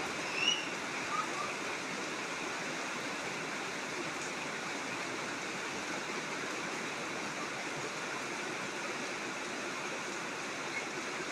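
Steady rushing noise of heavy rain and rising, flowing water, with a few brief high chirps in the first second and a half.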